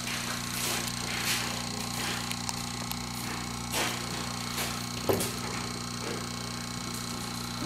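Steady electrical mains hum, with faint scattered handling noises on the bench and one sharper click about five seconds in.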